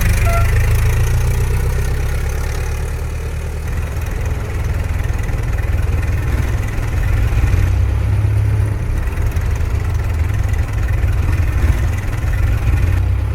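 Vintage car engine idling with a steady low rumble; it eases a little a few seconds in, then comes back up.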